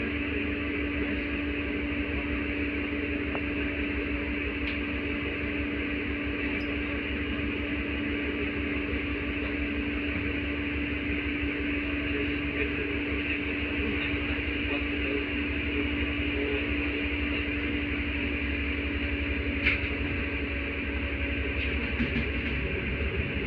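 Inside an LVS-86 tram car: a steady electrical hum over a low rumble, with a sharp click about twenty seconds in.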